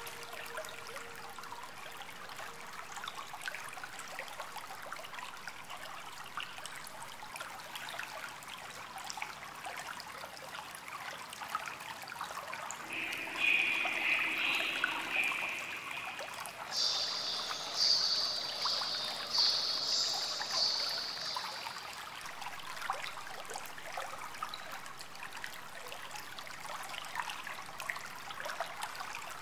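Steady trickling water with garden ambience. Around the middle come two bouts of high buzzing calls, the second higher-pitched and in several short pulses.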